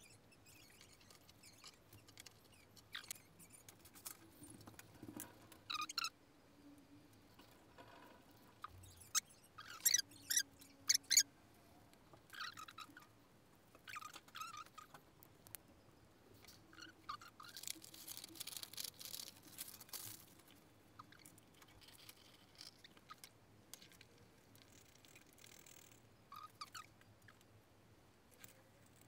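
Quiet handling sounds of lamp parts being assembled: scattered light clicks and clinks of small metal fittings, with a few sharper ticks about ten seconds in that are the loudest. A brief rustle of braided fabric cord being pulled through comes a little past the middle.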